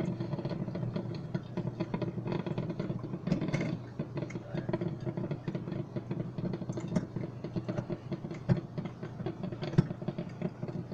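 Drip coffee maker brewing, gurgling and sputtering steadily with many small crackling pops. The brew cycle is almost finished.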